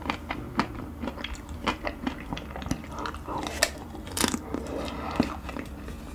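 Crunching and chewing on chocolate-coated Magnum ice cream bars: the hard chocolate shell cracks in many small, irregular crackles, several a second.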